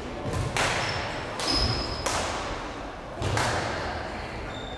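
Three sharp badminton racket hits on a shuttlecock, each ringing out in the large sports hall, with short high squeaks of shoes on the court floor.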